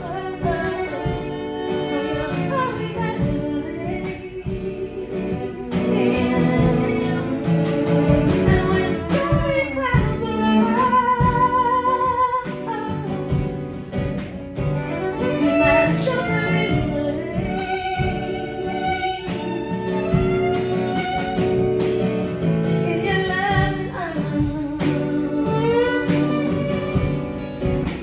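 Live acoustic band playing a song in D: a woman singing over strummed acoustic guitar, with fiddle and a drum kit.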